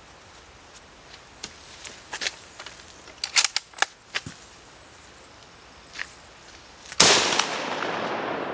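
A single shot from a Carl Gustav Model 1896 Swedish Mauser bolt-action rifle in 6.5×55mm, about seven seconds in, its report dying away over a second and a half. Before it, a few light clicks.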